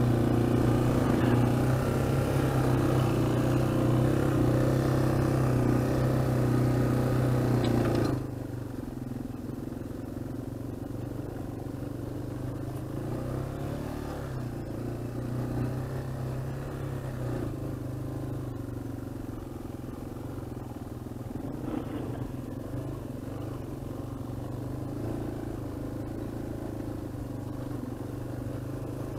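Dual-sport motorcycle engine running steadily while riding a dirt trail. It is louder for the first eight seconds or so, then drops suddenly to a quieter steady run.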